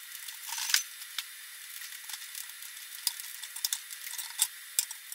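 Metal tongs being levered by hand in a bench vise: a scatter of light metallic clicks and ticks, irregular and a few per second, over a faint hiss.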